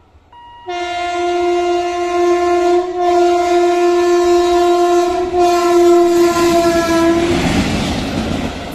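An Indian Railways WAP-7 electric locomotive sounding its horn as it approaches, in one long blast of about six and a half seconds with two brief dips. The horn stops and the loud rush and rumble of the locomotive passing close by follows.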